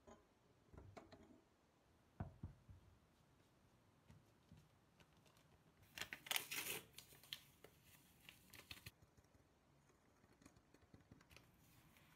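Faint kitchen handling noise: a soft knock about two seconds in, then a few seconds of crackly rustling and scraping midway, with scattered light clicks near the end.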